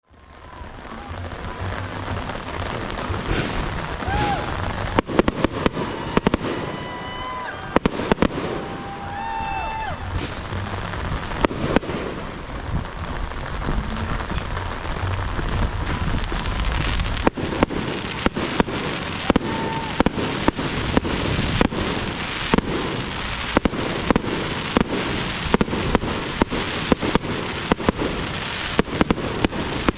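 Aerial fireworks display: a continuous crackling hiss of burning stars and comets with many sharp bangs, the bangs coming thicker and faster from about halfway through.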